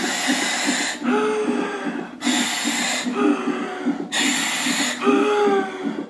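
A woman breathing deeply and rhythmically through a gas-and-air (nitrous oxide) demand-valve mouthpiece during labour contractions. A hiss alternates with a held humming tone, each lasting about a second, for about three breath cycles.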